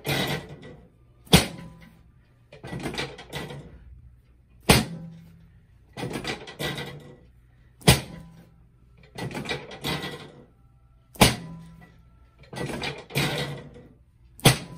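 Chiropractic adjusting table under repeated thrusts: five sharp thunks about three seconds apart, each followed by about a second of rustling and creaking.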